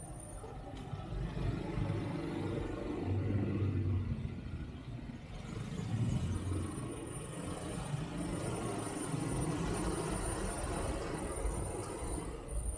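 Street traffic heard from a moving motorbike: motorbike and car engines running with road rumble, the engine sound swelling as the traffic pulls away.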